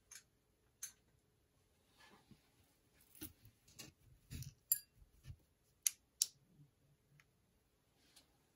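A few faint, sharp clicks and soft knocks of small objects being handled, including the switching on of a UV black-light flashlight. There are two clicks close together about six seconds in.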